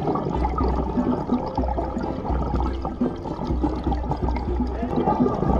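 Underwater bubbling and rumbling from a scuba diver's exhaled regulator bubbles, coming in bursts about a second long, with a faint crackle throughout.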